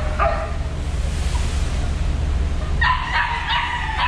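Pitched animal calls, a dog's yelps mixed with fighting cocks crowing, a short one just after the start and a run of them from about three seconds in, over the steady low drone of the ferry's engines.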